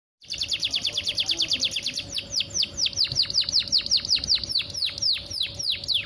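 Domestic canary singing: a string of quick downward-sweeping notes, about ten a second at first, slowing from about two seconds in to a run of longer, steeper falling notes at about six a second.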